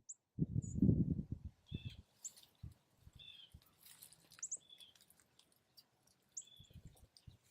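Small birds chirping, short high notes repeated about once a second. A low rumbling noise lasts about a second near the start.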